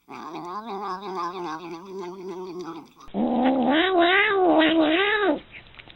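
Domestic cats yowling (caterwauling). First comes a long, wavering yowl lasting about three seconds. Then a louder yowl rises and falls in pitch several times and breaks off about five seconds in.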